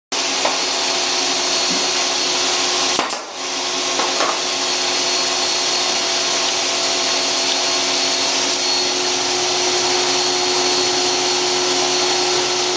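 A steady machine drone with a constant hum and a thin high whine, dipping briefly about three seconds in.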